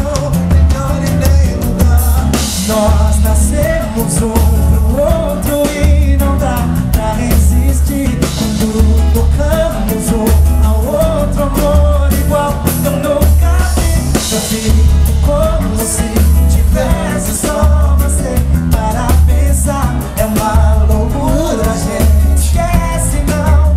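Live pagode: a male singer over a band of percussion drums and bass keeping a steady, even beat.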